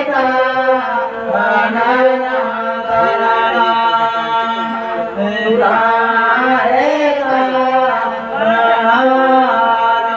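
Voices singing a chant-like song into microphones, in phrases a few seconds long, with a bowed folk fiddle playing along.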